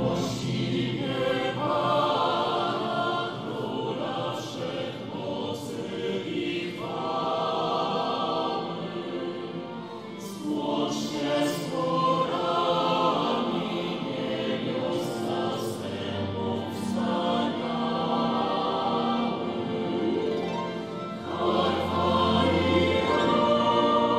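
Choir and orchestra performing sacred music, with sustained sung phrases over strings.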